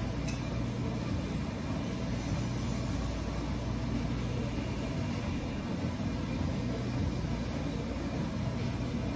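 A steady low rumble of background noise, with one faint click just after the start.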